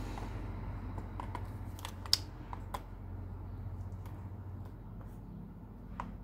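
Scattered light plastic clicks and taps from a bicycle pump's hose head being pressed and twisted onto an inner tube's valve, which it does not fit; one sharper click about two seconds in. A low steady hum runs underneath.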